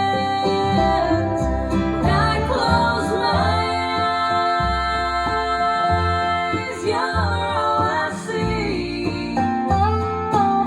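Country-pop song playing: an instrumental passage with a long held melody line that glides between notes, over plucked guitar and a bass line.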